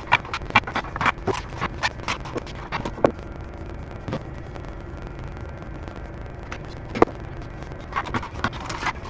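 Metal bar clamps and wooden boards knocking and clattering on a workbench during a glue-up: a quick run of clicks and knocks, then a few single knocks, then another cluster near the end.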